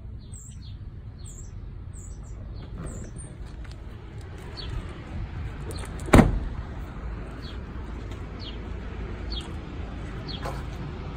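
A vehicle door slams shut about six seconds in, a single loud thump, over a steady low rumble; a bird chirps repeatedly throughout, about once a second.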